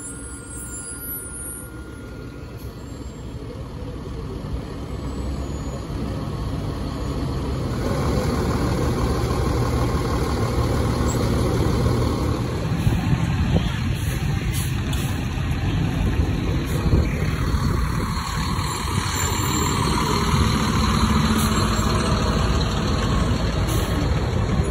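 Fire engine's diesel engine idling with a steady low rumble, growing louder over the first eight seconds or so and then holding steady.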